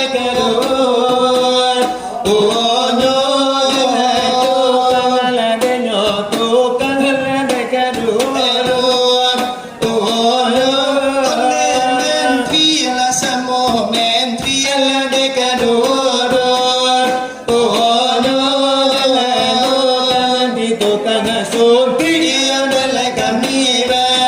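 Salawat dulang: men singing a winding devotional chant to the steady beat of fingers struck on a brass tray (dulang).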